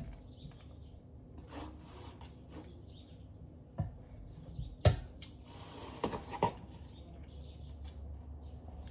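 Kitchen utensils being handled: a few sharp knocks and clatters from tongs and the air fryer basket as a chicken is put in, the loudest about five seconds in. A low steady hum runs underneath.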